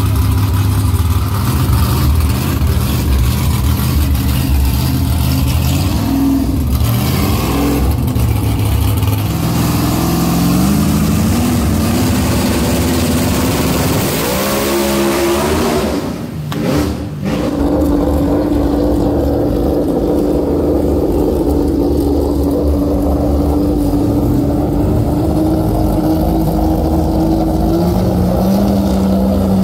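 Drag-race car engines running hard. A Camaro's engine runs through a smoky burnout with tyre noise, then revs up in rising steps. After a brief dip about 16 seconds in, a steady high engine drone holds and drops in pitch near the end.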